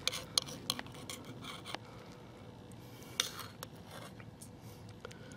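Metal spoon clinking and scraping against a stainless steel cup while stirring and scooping soup. The sound comes as a scatter of light clicks, with a sharper scrape about three seconds in.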